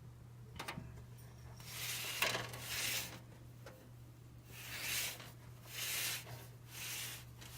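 A 1987 Lakewood P-223 20-inch box fan being handled and turned over, its housing rubbing and scraping in four broad swishes, with a few light clicks under a second in. A steady low hum underneath.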